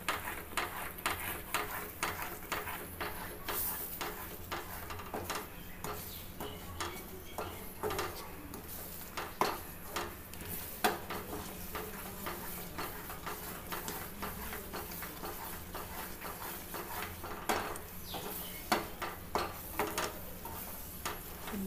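A wooden spatula stirring thick ash gourd halwa in a nonstick pan, irregular scrapes and soft taps against the pan as the mixture thickens.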